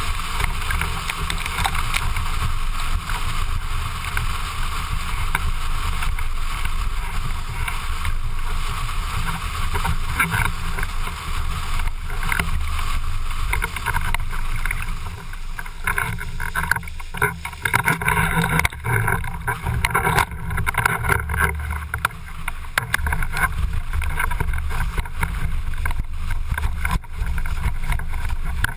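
Slalom windsurf board planing fast over choppy water: a steady rush and hiss of water spraying off the hull, with wind rumbling on the microphone. The rush turns more broken and uneven, like slapping chop, for several seconds around the middle.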